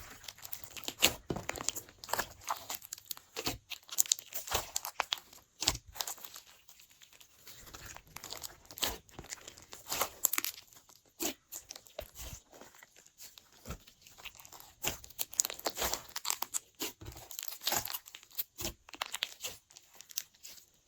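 Glossy slime being kneaded and stretched by hand, giving off a steady run of irregular sticky clicks, pops and crackles.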